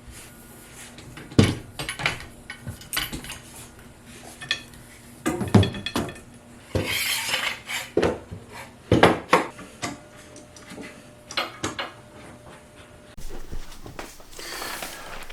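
Irregular knocks and metallic clinks of tools and workpieces being handled and set down on a workbench, with a couple of brief hissing or rustling stretches.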